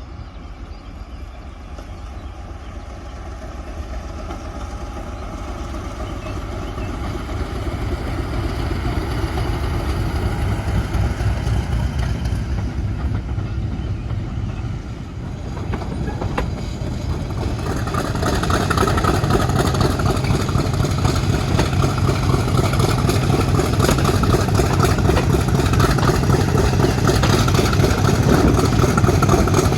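British Rail Class 50 diesel locomotive, its English Electric V16 engine running as the train approaches and grows steadily louder. About eighteen seconds in the sound jumps louder and fuller and stays there.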